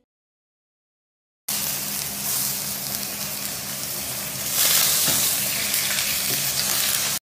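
Food sizzling in a hot pan: a steady frying hiss that starts after about a second and a half of silence and grows louder about three seconds later, with a faint low hum under it.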